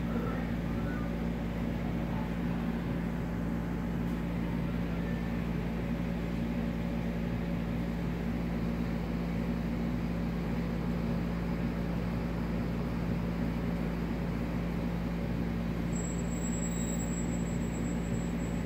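Steady low machine hum from a running motor, unchanging throughout, with a constant low drone and a fainter higher tone above it.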